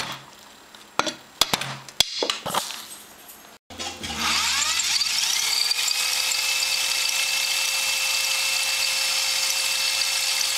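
A few sharp knocks and clicks of metal parts being handled. Then, about four seconds in, a Dremel rotary tool starts up with a rising whine that settles into a steady high-pitched whine as it runs at full speed.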